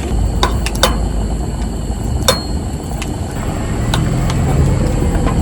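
A few sharp clinks and knocks, one with a brief metallic ring about two seconds in, over a steady low rumble that swells near the end.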